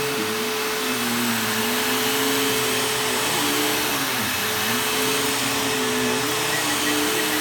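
Bissell PowerHelix vacuum cleaner running steadily on carpet. Under a constant high whine, the motor's lower tone dips and recovers every second or two.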